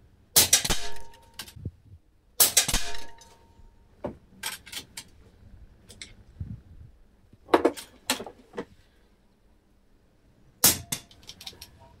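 Air rifle shots of JSB Ultra Shock pellets into a steel pellet trap made from an old compressor tank. About half a dozen sharp cracks come roughly two seconds apart, a few of them with a brief metallic ring from the tank. There is a longer pause near the end before the last shot.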